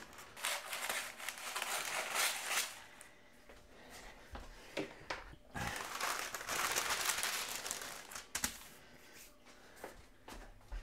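Greaseproof paper being handled: rustling and crinkling in two spells, with a few light knocks in between.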